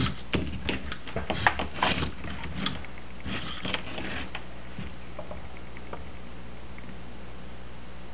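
Light clicks and taps of metal on metal from working a PL-259 connector while soldering it to coax, bunched in the first four seconds or so. A steady low electrical hum runs under them.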